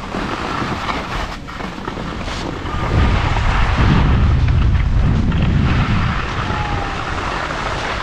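Wind noise on a moving action camera's microphone during a downhill ski run, over the hiss of skis sliding on snow. The low rumble is heaviest for about three seconds in the middle.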